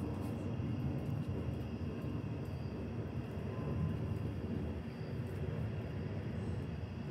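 A steady low rumble that neither swells nor breaks, with faint steady high tones above it.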